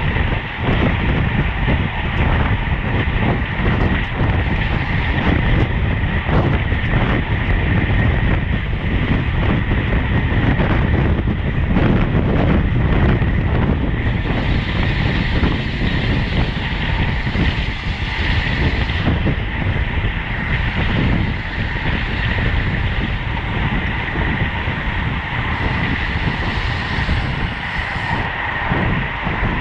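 Wind buffeting the microphone of a camera on a bicycle racing at speed, with steady road and tyre rumble.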